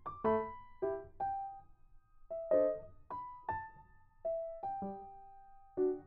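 Background piano music: single gentle notes struck and left to ring, about two a second.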